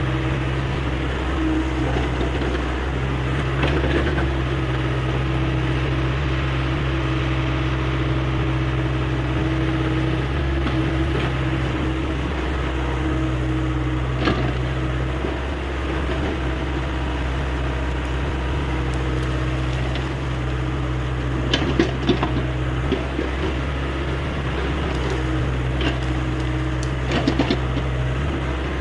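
Hyundai 85A excavator's diesel engine running steadily, with a few short knocks and clatters from the machine at work: one about halfway through, a cluster around two-thirds of the way, and more near the end.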